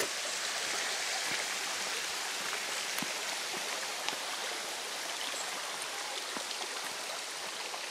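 Shallow woodland stream running over stones, a steady rush of water that eases slightly near the end.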